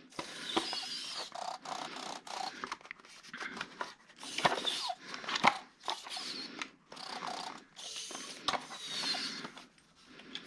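Handling noise as a network cable tester is taken out and readied: irregular rustling with scattered plastic clicks and rattles, coming in short bursts with brief pauses.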